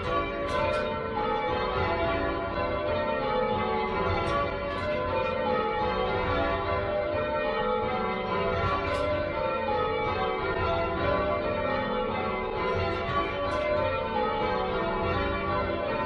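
Church tower bells rung in changes by a band of ringers: an unbroken run of bell strokes, each ringing on into the next.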